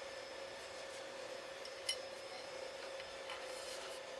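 Faint metal clicks and clinks from handwork on a rivet squeezer's lower jam nut, the sharpest about two seconds in, over a faint steady hum.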